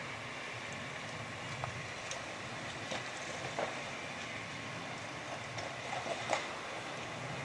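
Suzuki Samurai 4x4 crawling down a steep rocky track: a steady low vehicle noise with loose stones crunching and knocking under the tyres, a few sharp knocks, the loudest near the end.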